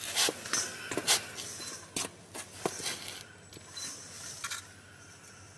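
A spatula scraping and smoothing GM-8300 metal repair putty over a patch on a finned pipe: a quick run of short scrapes and taps for about three seconds, a few more a second later, then it goes quiet.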